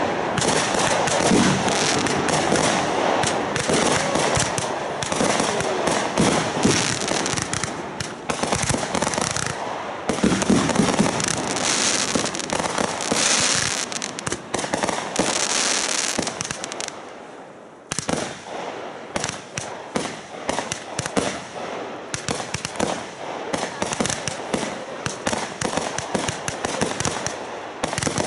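Aerial fireworks going off in quick succession: a dense run of bangs and crackling. It eases off briefly about two-thirds of the way through, then starts up again.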